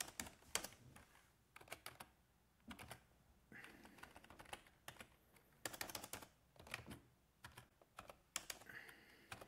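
Faint computer keyboard typing: short clusters of a few keystrokes with pauses between them.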